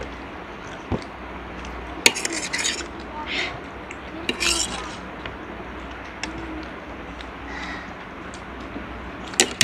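Metal forks clinking and scraping on a ceramic plate, with a few sharp clinks about one, two and nine seconds in, and short hissy bursts of eating noise in between.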